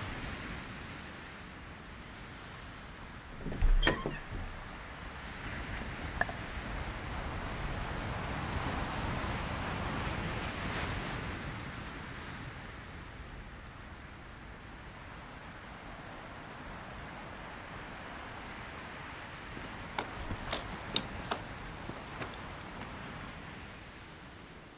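Crickets chirping at night, a steady run of short, evenly spaced chirps over a soft hiss of background noise. There is a thump about four seconds in and a few light clicks near the end.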